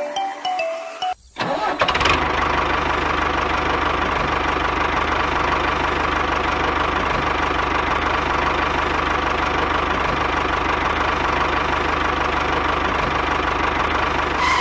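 A tractor-style engine running at a steady chug with an even low pulse. It starts about two seconds in after a brief break and stops just before the end.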